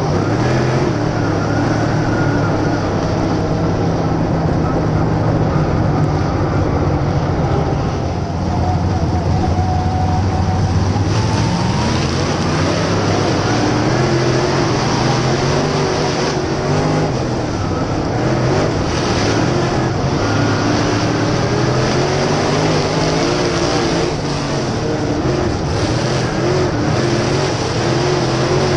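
Steel block dirt late model's V8 engine at racing speed, heard onboard the car: the revs rise down the straights and fall off into the turns, over and over. Other late models run close alongside near the end.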